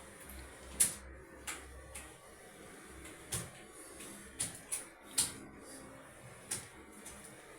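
Computer keyboard keys pressed one at a time in slow, uneven succession: about ten separate clicks, a second or so apart.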